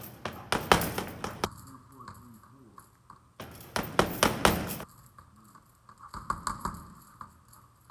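Boxing gloves punching a hanging heavy bag in three quick flurries of thuds and slaps, with short pauses between them.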